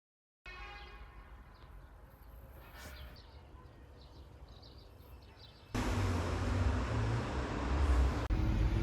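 Motor vehicle rumble, quiet at first, then much louder engine and road noise starting abruptly about six seconds in.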